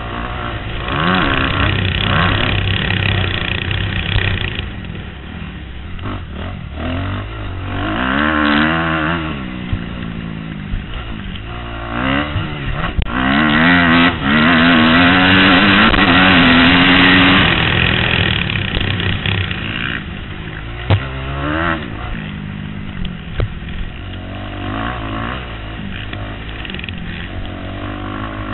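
Kawasaki KX250F single-cylinder four-stroke motocross engine at race pace. The revs rise and fall again and again with throttle and gear changes, with a long flat-out pull about halfway through.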